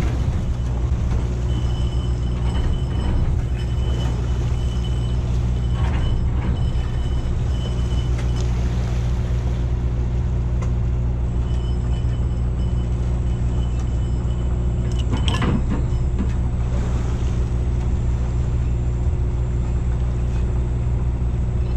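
Boat engine running steadily under way, a low even drone. A faint high whine comes and goes over it, and there is a brief clatter about fifteen seconds in.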